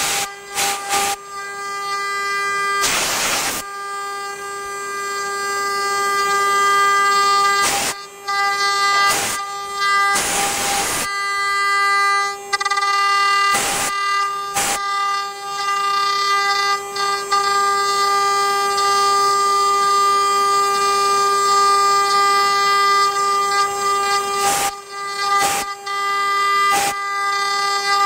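CNC wood lathe's router spindle running with a steady whine while its bit carves into a wooden column, broken by bursts of cutting noise, the longest about three seconds in and about ten seconds in, and scattered short clicks.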